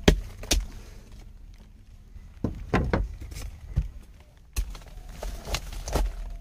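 Sharp knocks of a metal rod striking and chipping ice in a boat's fish hold. There are two knocks near the start, a pause of over a second, then more knocks in irregular clusters.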